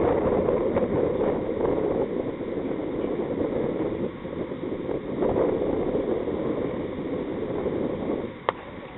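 Wind buffeting an outdoor microphone: a steady, fluctuating rumble. Near the end there is a single sharp crack as the bowler's delivery is met by the bat, a cricket bat striking the ball.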